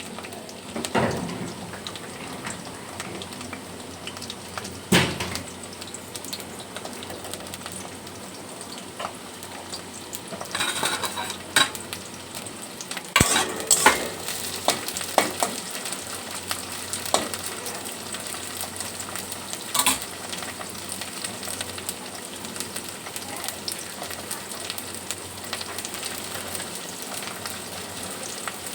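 Capsicum sizzling as it fries in hot oil in a pan. A stirring utensil now and then knocks and scrapes against the pan, most often in the middle of the stretch.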